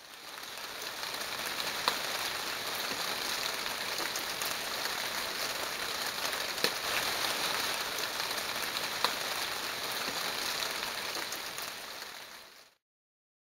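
Steady rain falling on a wet concrete patio and its puddles, with many small drop ticks and a few sharper single drop hits. The sound fades out near the end.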